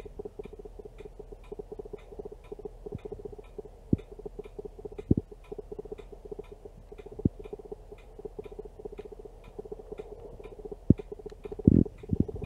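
A camera's autofocus motor buzzing as it keeps hunting for focus, with a regular fast ticking at about three ticks a second. A few dull thumps come in between, the loudest just before the end.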